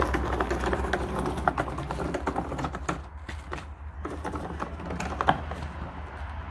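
Marshall speaker cabinet rolling on its casters over rough gravel and tarmac: a continuous clattering rattle of small wheels with irregular clicks and knocks, one sharper knock a little past five seconds in, over a steady low rumble.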